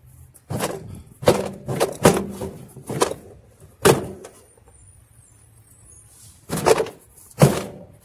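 Washing machine's plastic tub being rocked and yanked upward on its transmission shaft, knocking and thumping against the machine in a quick run of hits, then two more near the end. The tub is stuck because the shaft is rusted.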